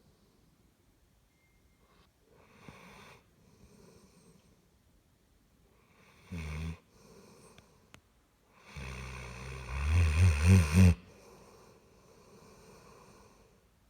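Black Labrador retriever snoring: quiet breaths, then a short loud snore about six seconds in and a longer, louder snore a few seconds later that ends in a rattling flutter of about four pulses a second, followed by faint breathing.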